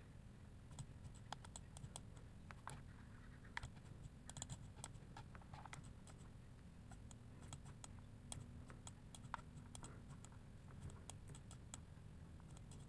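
Near silence with faint, irregular clicks of a computer mouse and keyboard.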